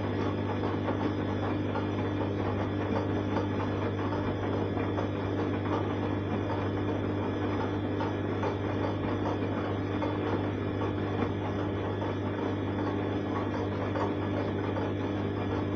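Arçelik 3340 SJ front-loading washing machine in its wash phase, the drum tumbling a soapy load. A steady motor hum runs under the sloshing of water and suds and the clothes turning over.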